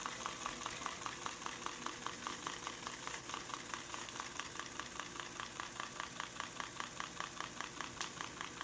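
5.25-inch 360K floppy drive working with a disk in it, giving a steady, rhythmic clicking of about six clicks a second. It did not sound good at all: the owner puts it down to the disk having shifted and sitting misaligned inside the drive.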